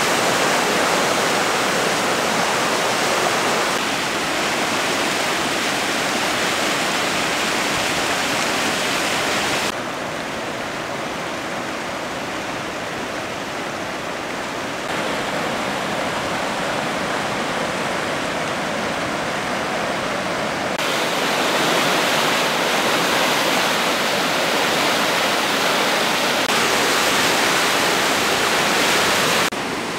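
Water rushing over a low river weir and churning below it, a steady rush of falling water. Its level steps up and down a few times.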